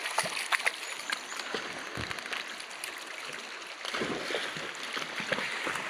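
Shallow river water flowing over stones: a steady rush with scattered small splashes and clicks.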